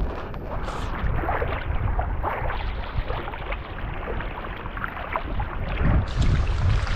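Wind rumbling on the microphone over water around a boat, with scattered small clicks and knocks.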